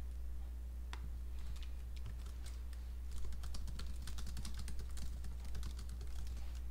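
Computer keyboard typing: a single keystroke about a second in, then a quick run of keystrokes from about halfway, over a steady low hum.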